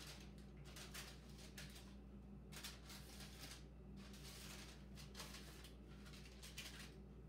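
Faint, irregular scraping and rustling of a spatula spreading cake batter across parchment paper in a metal sheet pan, in short strokes, over a steady low hum.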